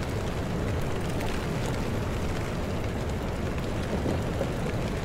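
Heavy rain falling, a steady rushing noise with no let-up.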